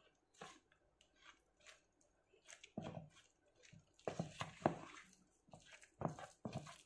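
Silicone spatula stirring flour into raw fish paste in a plastic tub: irregular wet squishing and scraping strokes, which grow louder and busier about four seconds in.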